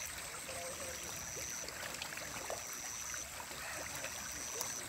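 Pond water with a steady watery hiss and faint scattered small splashes and pops, as catfish rise to take floating feed pellets. A high thin whine comes and goes about every second and a half.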